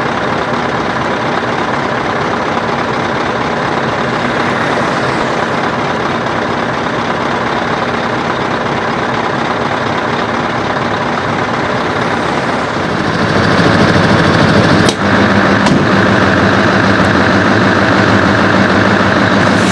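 Scania V8 truck engine running steadily, growing clearly louder about two-thirds of the way in, with a couple of sharp clicks shortly after.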